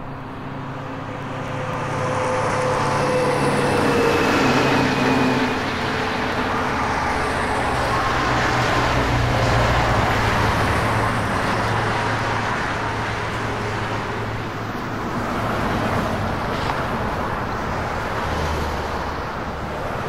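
Highway traffic going by: a steady noise of tyres and engines that swells and eases as vehicles pass, with a low engine hum underneath. A heavy semi-truck is coming up near the end.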